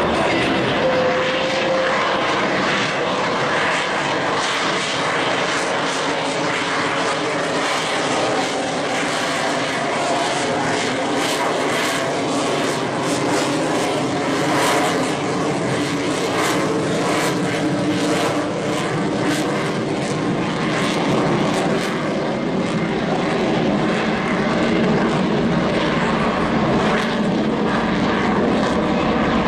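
Fixed-wing aircraft engine running loud and steady, with a spell of crackling through the middle.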